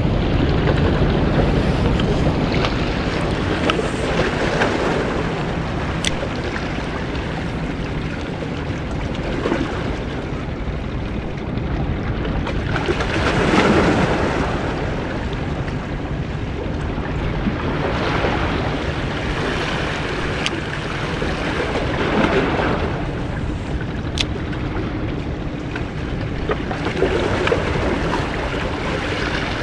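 Sea waves washing against breakwater rocks, with wind buffeting the microphone as a steady rumble. The wash swells up several times, loudest about halfway through.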